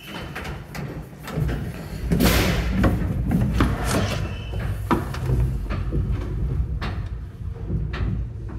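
Paternoster lift heard from inside a moving cabin: a heavy low rumble of the running mechanism sets in about a second and a half in, with repeated clunks and knocks from the cabin and its chain gear and a loud rattling clatter soon after.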